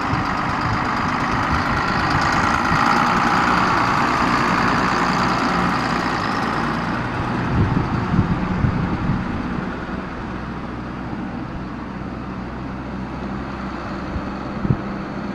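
1993 John Deere 4960 tractor's six-cylinder diesel engine running as the tractor drives past towing a grain cart. It is loudest a few seconds in and fades as the tractor moves away, with a few low bumps near the middle.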